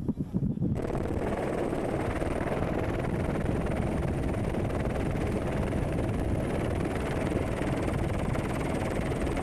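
Steady helicopter engine and rotor noise, as heard from the aircraft while filming from the air, starting abruptly about a second in. Before it, gusting wind buffets the microphone.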